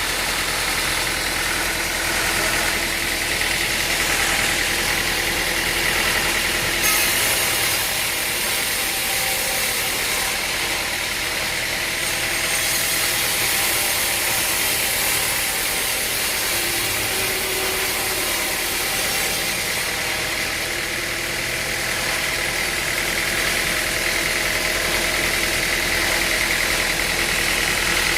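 Sawmill machinery running steadily, an engine-driven mill droning at an even level without pause.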